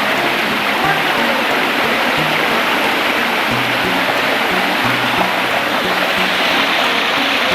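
Waterfall rushing steadily, a dense, even roar of falling water, with background music playing a short repeated low bass pattern over it.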